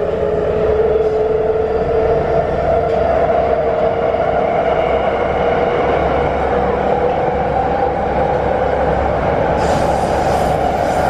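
Wagonmasz 81-series metro train running in the tunnel, heard from inside the car. A steady whine from the traction drive rises slowly in pitch as the train gathers speed, over a constant rumble of the wheels on the rails.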